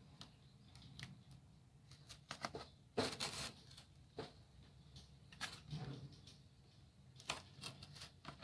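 Scattered light taps, scrapes and rustles of craft foam pieces being handled and pressed into place, the loudest a scrape about three seconds in.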